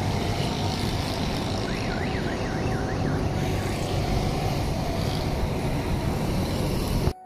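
Steady road-traffic noise from vehicles on a rain-soaked street, with a heavy low rumble under it. A brief, faint warbling tone wavers up and down about two seconds in. The sound cuts off suddenly near the end.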